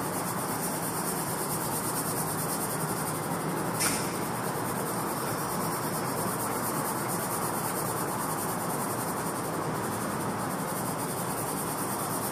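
Soft 6B graphite pencil hatching on drawing paper: a steady scratching of quick back-and-forth strokes, with one sharper stroke about four seconds in.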